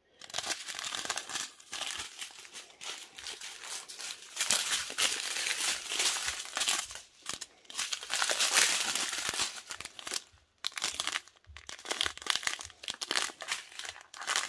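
Small clear plastic zip bags of resin diamond-painting drills crinkling and rustling as they are handled and shuffled through, pausing briefly about ten seconds in.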